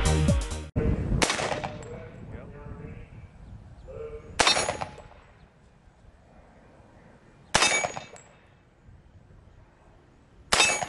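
Electronic music cuts off just under a second in, then four single gunshots about three seconds apart, each followed by the ring of a steel target plate.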